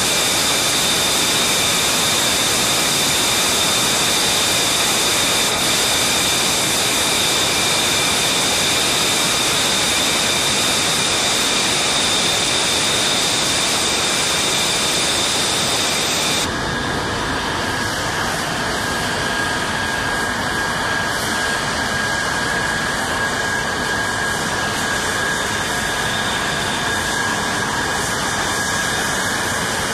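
F-35B Lightning II's F135 turbofan jet engine running steadily: a loud rush with a high whine. About halfway through, the whine changes abruptly to a single lower steady tone.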